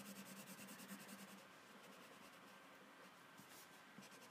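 Faint scratching of a marker coloring in on a paper coloring page, a little stronger in the first second or so.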